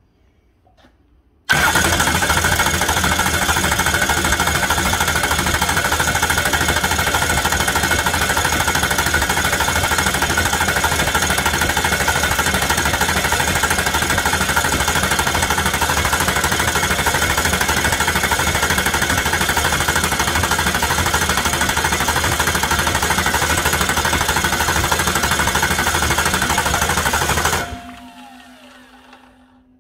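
Ford 6.0 Powerstroke V8 diesel turning over on its starter motor without firing, a loud, steady cranking that starts about a second and a half in and cuts off near the end, spinning down with a falling tone. The cranking is priming the high-pressure oil system: there is still air in it, the high-pressure oil pump delivers too little oil, and the IPR valve is not activated (open).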